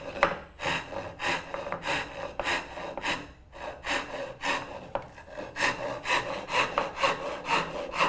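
Handsaw rip-cutting a wedge kerf lengthwise into the end of a wooden chair-leg tenon, stroke after stroke. The strokes come about two to three a second at first and quicken to about four a second in the second half.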